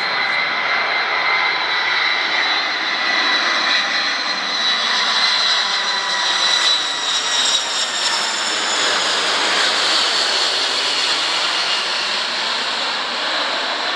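McDonnell Douglas KC-10 Extender's three turbofan jet engines, loud and steady as the tanker passes low overhead. High whine tones ride over the jet roar and drift slowly lower as it goes by.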